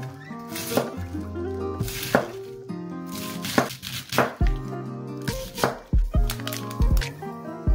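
Kitchen knife chopping through sugarloaf cabbage on a cutting board, a series of separate chops, over background music.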